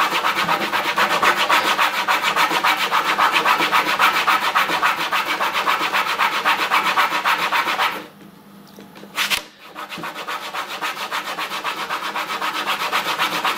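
A coin rubbed rapidly back and forth on a leather strop charged with GOI polishing paste, making a fast, even scrubbing rhythm. The strokes stop for about two seconds a little past the middle, with a single click, then resume more softly and build up again.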